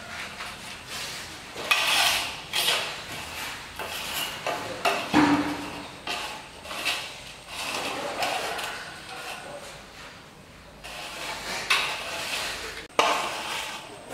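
Metal straightedge dragged and scraped across a bed of dry sand-cement mortar to level it: uneven gritty scraping strokes, with a few sharp knocks among them.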